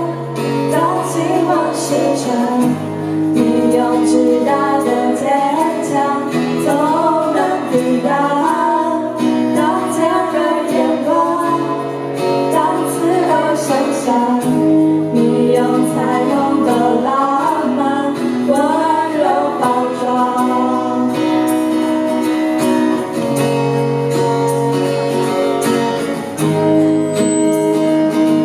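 Music: a song with guitar accompaniment and a wavering high melody line over held bass notes.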